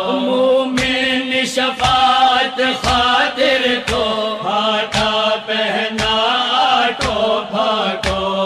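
Sung devotional lament in Gujarati-Urdu: a voice drawing out a melodic line over a steady low drone, with a regular percussive beat about twice a second.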